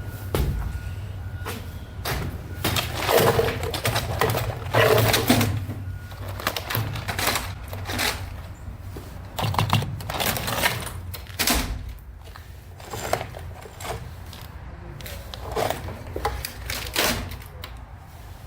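Junk being rummaged through in a dumpster: irregular knocks, clatter and rustling as objects are shifted and handled, over a steady low rumble.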